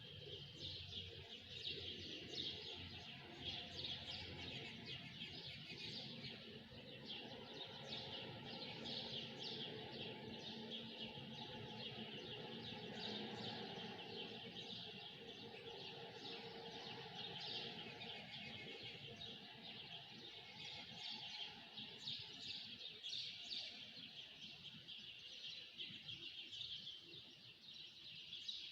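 A dense chorus of many small birds chirping and twittering at once, a steady mass of overlapping high chirps.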